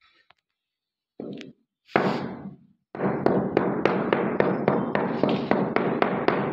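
Wooden handle knocking on a large ceramic floor tile laid on wet mortar, bedding it down. Two separate knocks, then, about three seconds in, a quick run of taps at about four a second.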